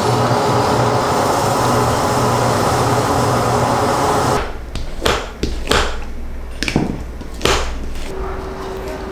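Leather skiving machine running steadily as a leather strip is fed through to thin it to 0.6 mm, cutting off suddenly about four seconds in. Then a handful of short scraping strokes as glue is spread on leather with a spatula.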